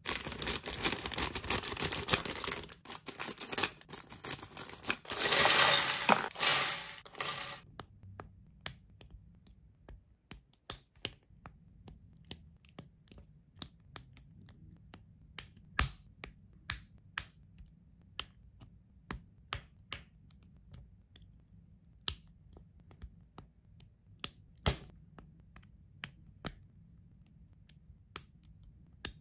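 A clear plastic LEGO parts bag crinkling and rustling as it is opened, for about the first seven seconds. Then small plastic LEGO pieces being snapped together by hand, a series of sharp separate clicks about one or two a second.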